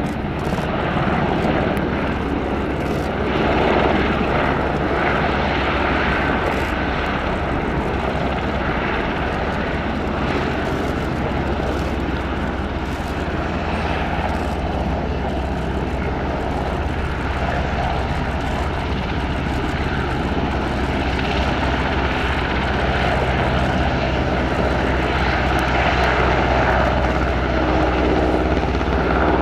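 Military helicopter flying, a steady loud drone of rotor and turbine noise with low steady tones underneath; it grows a little louder near the end.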